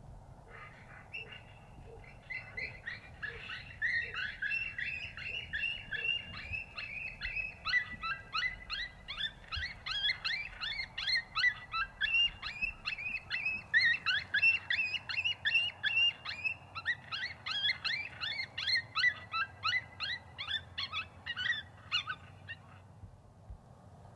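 A long, dense chorus of short, high animal calls, many overlapping in quick succession. It builds over the first few seconds and stops abruptly shortly before the end.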